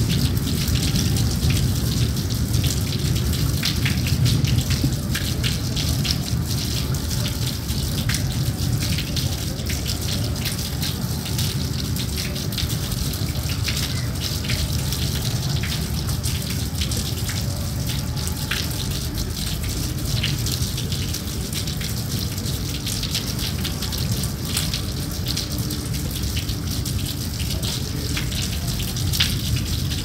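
Steady rain falling, a dense even hiss scattered with many small drop ticks over a low rumble.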